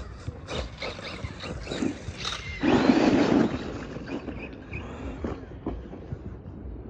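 Small electric RC trucks running on skatepark concrete: scattered clicks and knocks, with one loud rough rush lasting about a second, a little over two and a half seconds in.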